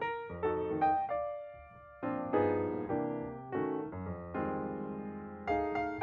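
Background piano music: notes struck and left to ring, with a brief lull about a second and a half in.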